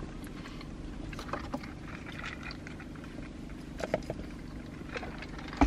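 Steady low hum of a car heard inside its cabin, with soft eating noises over it: small clicks and crackles of chewing and food wrappers, and a sip from a paper drink cup about four seconds in.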